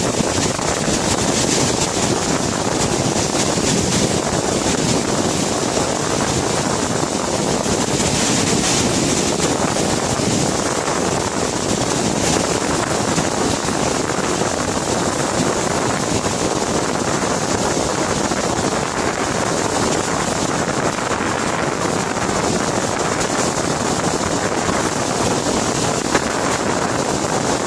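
Fast, muddy floodwater rushing down a wadi in spate after heavy rain: a steady, loud wash of water noise.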